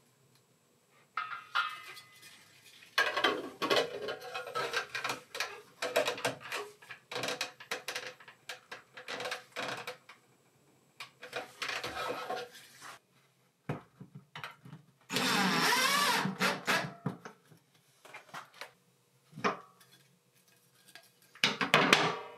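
Gloved hands turning a clear plastic 20-inch whole-house filter housing onto its threaded cap, with irregular plastic creaking and rubbing as it is screwed on. About fifteen seconds in comes a longer, louder squeak with a wavering pitch as the housing is snugged tight.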